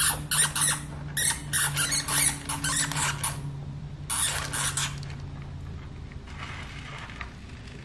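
Campbell's dwarf hamster scrabbling and digging in pellet bedding: bursts of rapid scratchy rustling for about the first three seconds and again at about four seconds, then fading to faint scratching.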